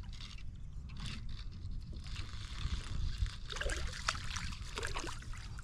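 Water splashing and sloshing over a low, steady rumble, with a few short clicks.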